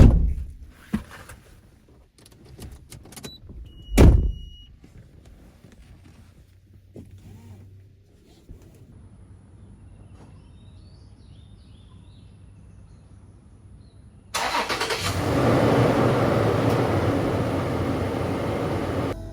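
Two heavy thuds, then a vehicle engine running with a low hum. About two-thirds of the way in, a much louder steady rush of engine and road noise starts suddenly and runs until it cuts off at the end.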